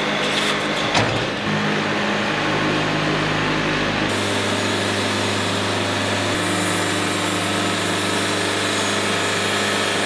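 Wood-Mizer band sawmill running with a steady mechanical hum as it saws a sassafras log, with a couple of knocks in the first second. The sound changes abruptly about four seconds in.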